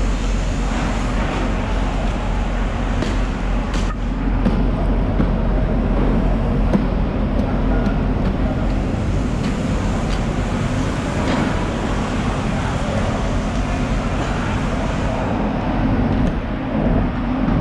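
Steady low machine rumble, with two sharp knocks a few seconds in.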